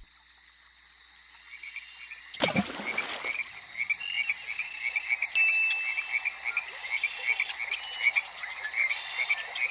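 Evening chorus of frogs and insects: a steady high insect trill under many short chirping calls, several a second. A brief loud whoosh or rustle comes about two and a half seconds in.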